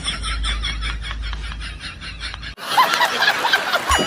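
Laughter: a rapid run of snickering pulses that cuts off abruptly about two and a half seconds in, replaced by a different, higher-pitched burst of laughter.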